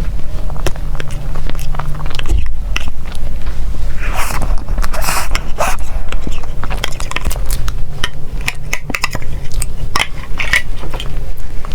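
Close-miked eating of desserts: repeated bites and chewing with many small crisp clicks, and a denser crackling stretch about four seconds in.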